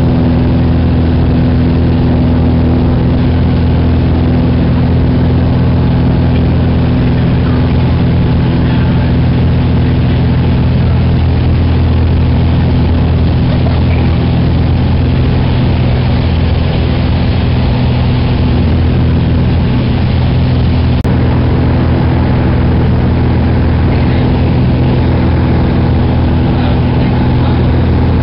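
Steady, loud drone of a small aircraft's engine and propeller heard inside the cabin, holding an even low pitch throughout.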